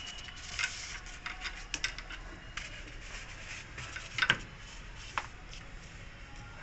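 Scattered light clicks and taps of hand-work on metal and plastic parts, the loudest a quick double knock about four seconds in.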